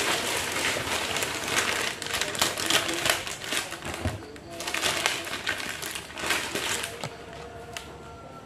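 Clear plastic bag wrapped around a cardboard parcel, crinkling and rustling in spurts as it is handled and pulled open by hand, with a brief lull about four seconds in.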